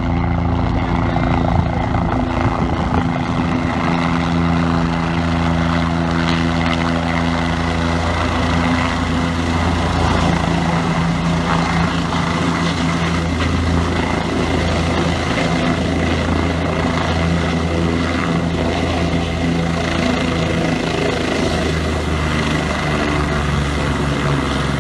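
Helicopter's rotor and turbine engine running loudly and steadily as it descends and lands on a dirt helipad, the rotor still turning after touchdown.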